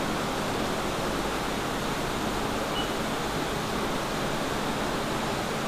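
Flood coolant hissing and splashing steadily inside the closed enclosure of a Haas TM-1P CNC mill while it drills a 304L stainless steel flange.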